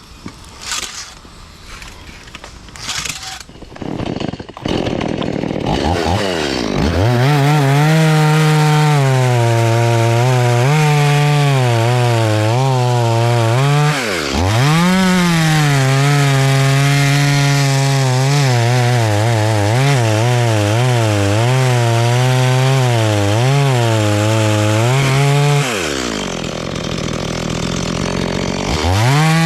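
A Stihl two-stroke chainsaw cutting through a coconut palm trunk. A few knocks come first, then the saw revs up about five seconds in and runs at high speed, its pitch wavering under load. It dips and climbs back about halfway through, and drops to a lower speed before revving again near the end.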